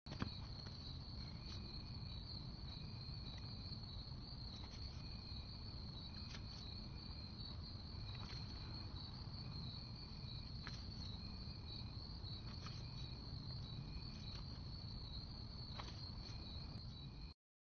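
A faint night insect chorus: a steady high cricket trill, with a lower pulsed call repeating about once a second, over a low rumble of background noise. It cuts off suddenly near the end.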